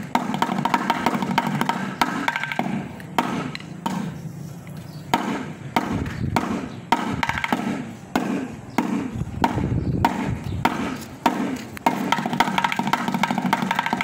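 Drumsticks striking metal cans and tins set up as a makeshift drum kit. The hits come as separate strikes with short gaps through the middle. A backing song with a steady melody is heard at the start and comes back near the end.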